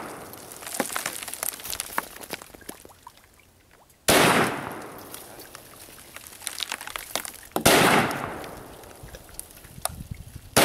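WASR-10 AK-pattern rifle in 7.62×39mm firing single shots, about three and a half seconds apart, each ringing out with a long echoing tail; a third shot comes right at the end.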